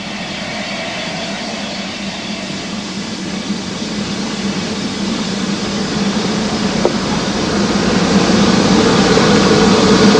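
Hughes Crab 2-6-0 steam locomotive moving slowly: a steady hiss of steam over a low rumble, growing gradually louder.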